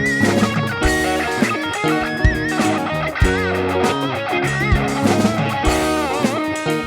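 Instrumental rock jam of electric guitar, bass guitar and sample-pad drums, layered on a loop station. A lead guitar line bends and wavers in pitch over sustained bass notes and chords, with sharp drum hits about every second.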